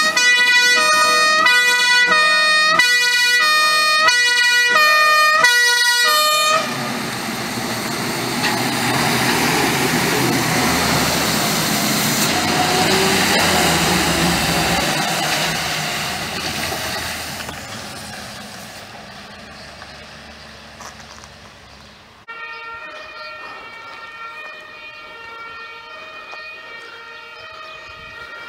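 Fire engine's two-tone siren (German Martinshorn) sounding in alternating tones as the truck approaches, then cutting off after about six seconds. Its engine and tyre noise on the wet road then grows loud as it passes and fades away. About two-thirds of the way through, a fainter two-tone siren starts up suddenly.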